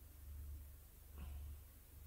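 Near silence: room tone with a faint low hum that swells and fades in a slow, even rhythm, and one faint brief sound about a second in.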